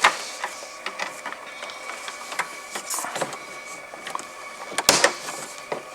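Plastic dashboard trim being handled and fitted: scattered small clicks and taps, with one sharp click about five seconds in, over a faint steady whine.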